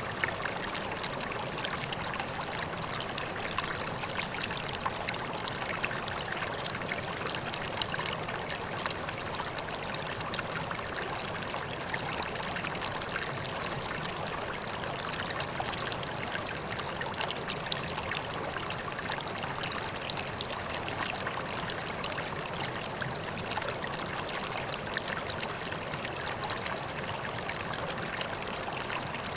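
Water running steadily into a koi pond, trickling and splashing with many small droplet splashes over an even rush.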